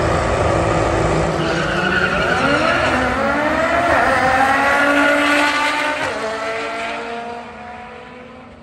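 Two cars launching down a drag strip, their engines revving hard with pitch rising through the run. The sound fades over the last couple of seconds as they pull away.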